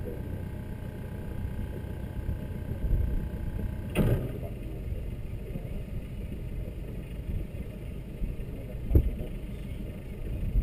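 A sailboat's inboard engine running at low speed while motoring slowly, mixed with a wind-like rumble. There is a sharp knock about four seconds in, where a faint steady whine stops, and a second knock about nine seconds in.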